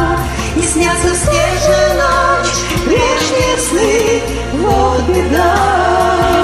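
Music from a pop song: a lead melody line sliding up and down in pitch over a steady bass and percussion accompaniment.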